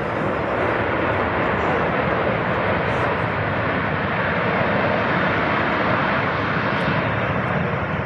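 Jet engines of an Airbus A330-200 air tanker arriving at the runway, a loud, steady rushing noise that holds for the whole stretch.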